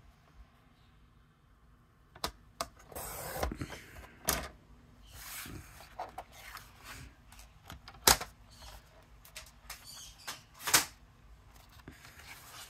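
Sheets of card stock and a die-cut card panel being handled, slid and set down on a paper trimmer: rustling and sliding with several sharp taps, the loudest near the end.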